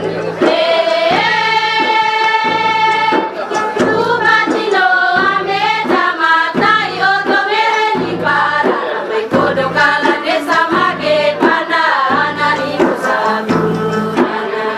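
Women singing a song in Indonesian praising the regent's visit: a long held high note, then a wavering melody in short phrases, over a low steady backing tone.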